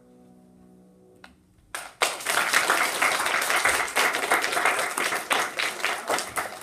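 The last held chord of a violin ensemble with piano fades away. About two seconds in, the audience starts applauding, with dense, loud clapping.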